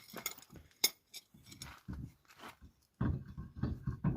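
Sharp metal-on-metal clinks and knocks as a heavy vehicle's wheel is worked onto its hub studs during a tyre change. The loudest knock comes about a second in.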